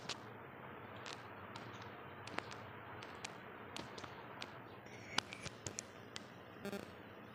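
Greased hands pressing and patting a minced mutton mixture into cutlet patties: faint, irregular small pats and sticky clicks over a low background hiss.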